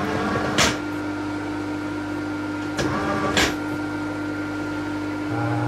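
Metal parts of a milling machine handled by hand while the fly cutter is set up: two sharp metallic clacks about three seconds apart, each with a softer click just before it, over a steady hum. A short low buzz starts near the end.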